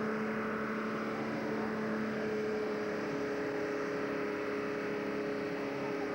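Diesel engine of a pulling tractor running flat out under heavy load as it drags a weight-transfer sled, a steady, unbroken drone.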